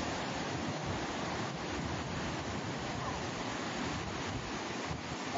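Ocean surf washing in on a sand-and-cobble beach, a steady wash of breaking waves.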